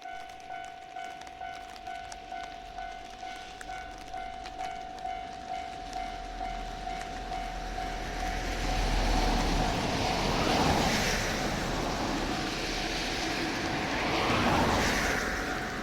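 Japanese railway level-crossing warning bell ringing in a steady pulse, about two strikes a second. From about seven seconds in, a train passes over the crossing, loudest around ten and again around fifteen seconds in, while the bell keeps ringing.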